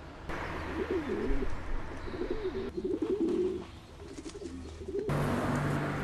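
Feral pigeons cooing: a string of low, wavering coos that rise and fall and overlap. The background noise changes abruptly about a third of a second in and again about five seconds in.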